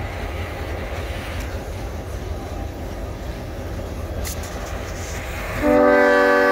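Diesel locomotives rumble past at low speed. About five and a half seconds in, lead locomotive NLR 422 sounds its horn: a loud, held chord of several notes.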